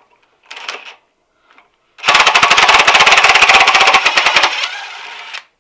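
Cordless impact driver hammering a nut tight on the bolt of a snowmobile ski's doubled-up leaf spring: a loud, rapid rattle starting about two seconds in and lasting about two and a half seconds, then the driver spinning on more quietly without hammering for about a second before it stops.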